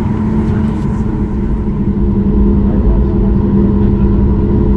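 Cabin noise inside a Boeing 737 MAX 8 taxiing: the CFM LEAP-1B jet engines run at taxi power with a steady low drone, growing slightly louder about two seconds in.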